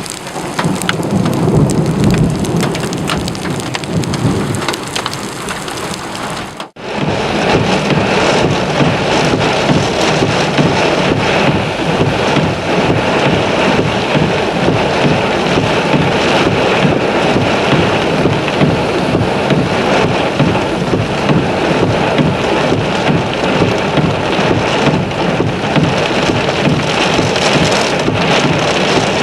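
Heavy rain pouring down during a severe thunderstorm, with a low rumble of thunder in the first few seconds. An abrupt cut about seven seconds in switches to a steadier, denser downpour.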